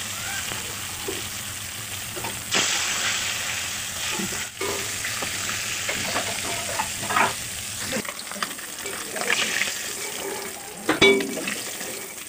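Fish pieces sizzling as they fry in hot oil in an aluminium wok. A spatula turns and lifts them, scraping and knocking against the pan now and then, with the sharpest knock near the end.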